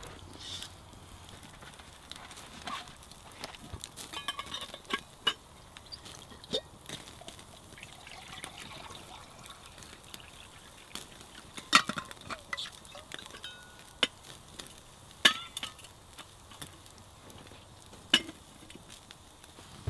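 Wood campfire crackling under steaks on a wire grill, with water poured from a steel flask into a small metal billy can. Metal pots and the flask clink as they are handled and set down by the fire, and a few sharp knocks stand out.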